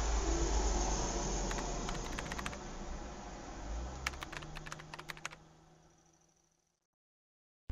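Typing on a Dell laptop keyboard: two short runs of quick key clicks, about a second and a half in and again about four seconds in, over a low background rumble. The sound cuts out to silence about five seconds in.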